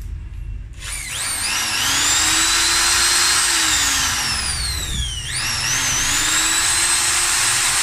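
Total 850 W corded impact drill run free with an empty chuck during a test. Its motor spins up with a rising whine about a second in, holds at full speed, and then winds down when the trigger is let go. It is triggered again about five seconds in and spins back up to full speed.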